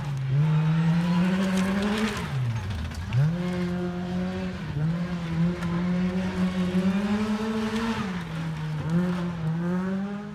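Rally car engine pulling hard on a stage, its note climbing through the gears. About two seconds in the revs drop sharply and then pick up again. There are shorter dips around five and eight seconds in.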